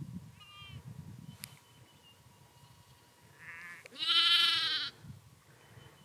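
Sheep bleating: a faint, higher call near the start, then one loud, wavering bleat about four seconds in that lasts just under a second.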